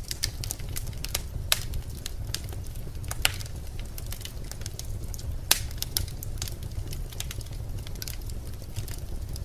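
Birch logs burning in a fireplace, crackling and popping irregularly over a steady low rumble of the flames. The sharpest pops come about a second and a half in, again near three seconds, and a loudest one about five and a half seconds in.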